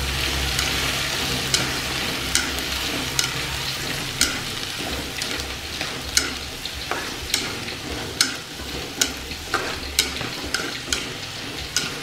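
Long beans and tempeh sizzling in an aluminium wok as they are stir-fried with chopsticks, which click sharply against the pan about every half second to a second.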